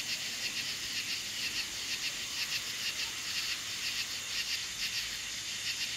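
Steady chorus of night insects, many rapid high-pitched chirps pulsing over one another.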